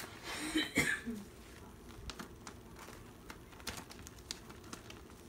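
Clear plastic binder pocket pages being flipped and handled, giving light rustles and scattered small clicks, with a brief louder burst about half a second in.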